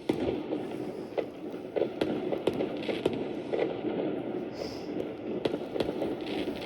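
Fireworks going off: a steady rumble with many sharp pops and crackles scattered throughout.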